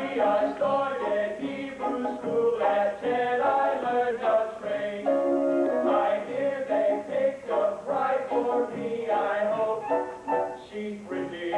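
Stage-musical cast singing together with instrumental accompaniment.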